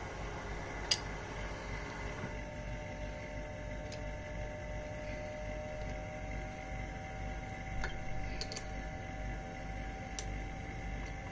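Steady motor hum from the small bead lathe's workstation, its tone changing about two seconds in, with a few short metal clicks as the tool-post bolt is worked with a hex key.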